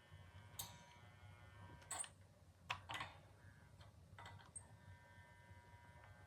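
Faint, scattered small clicks and taps, about five over several seconds, over a low steady hum, as a soldering iron is held against a guitar's wiring joint waiting for the solder to melt.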